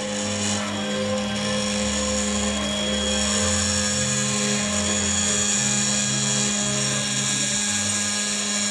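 Stepper motors of a home-built three-axis CNC machine running as an axis is driven along its lead screw: a steady whine, with a lower hum that shifts in pitch a few times.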